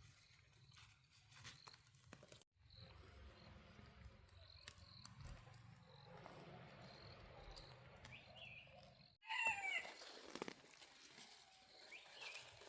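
Quiet outdoor ambience with faint scattered clicks and rustles. A short, bird-like animal call comes about nine and a half seconds in, and a fainter one near the end.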